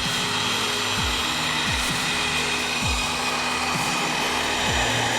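Steady rushing noise of a small motor or blower, with background music carrying a low thump about once a second.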